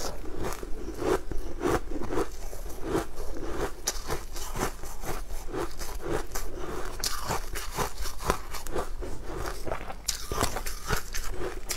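Close-miked chewing and crunching of a crumbly dessert, with dense irregular crackles. Toward the middle and end comes a dry scraping and rustling as the piece is rolled through loose crumbs in a plastic tub.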